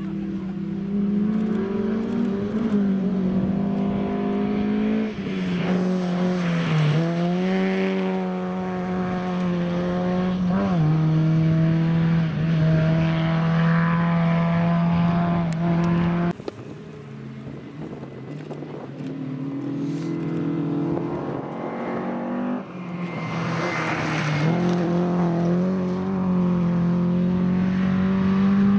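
Historic rally cars driven flat out on a gravel stage. The first car's engine revs hard, dropping in pitch a few times at gear changes and lifts as it goes past. After a sudden cut about halfway through, a second car's engine rises as it approaches and stays at high revs as it passes.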